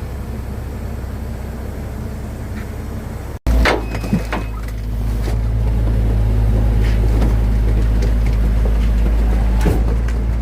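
A motor vehicle's engine running steadily. About three and a half seconds in, the sound cuts off abruptly and switches to a louder, deeper rumble with scattered knocks and clatter.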